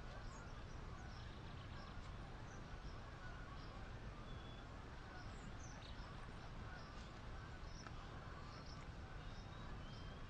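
Faint woodland ambience: scattered small bird chirps and a few short whistled notes over a low steady rumble.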